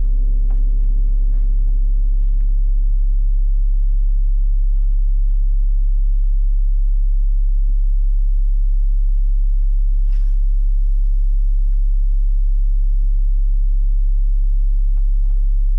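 Steady low electrical hum with a stack of overtones, with a few faint clicks over it.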